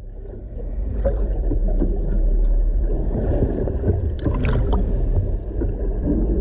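Muffled underwater sound beneath a boat's hull: a steady low rumble of moving water, with a few faint clicks.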